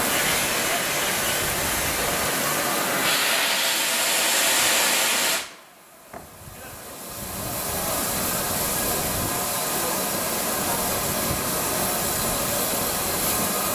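Steam hissing loudly from a standing LNER B1 steam locomotive, 61264, as steam blows out low at the front by its cylinders. The hiss cuts off abruptly about five seconds in, then builds back up over a couple of seconds to a steady hiss.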